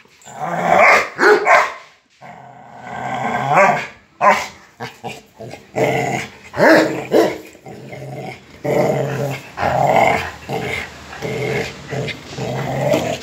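Two Rottweilers growling in repeated bursts as they play tug-of-war over a motorcycle tyre.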